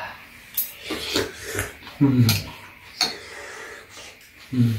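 Metal spoons and chopsticks clinking against ceramic soup bowls during a meal, in short scattered clicks. A low voice gives a short falling murmur about two seconds in and again near the end.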